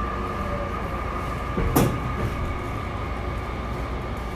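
Running sound inside a Tokyu 5050 series commuter train car: a steady rumble of wheels and running gear under a steady high whine. A single sharp knock comes a little under two seconds in.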